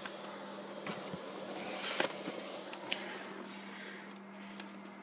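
VHS tape cases being handled: a few light knocks and rustles, about a second apart, over a steady low hum.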